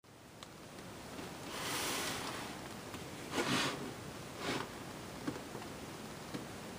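Handling noise: soft rustling swishes from hands and the handheld camera moving over a model kit box, the loudest about three and a half seconds in, with a few faint clicks.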